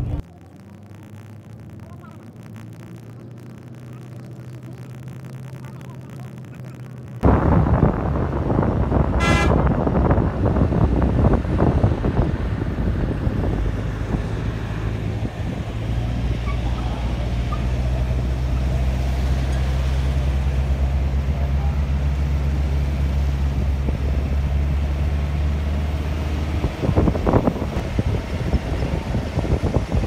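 A vehicle driving on a mountain road: a steady engine hum with road and wind noise that starts suddenly about seven seconds in, after a few seconds of quieter low background.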